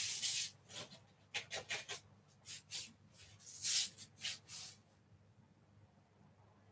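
A handful of short rustles and scrapes from things being handled in a kitchen, the loudest a hissing rustle about three and a half seconds in, then quiet for the last couple of seconds.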